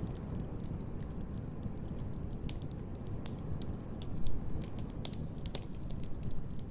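Wood fire crackling in a fireplace: scattered sharp pops and snaps over a steady low rumble, with a louder flare-up a little past halfway.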